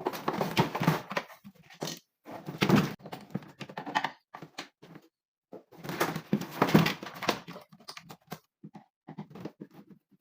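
Handling noise: three bursts of rustling and clattering, each lasting about two seconds, then scattered light clicks near the end.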